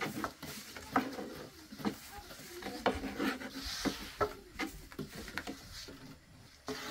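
Thin wooden rolling pins rolling out flatbread dough on round wooden boards: irregular knocks of wood on wood with rubbing between them.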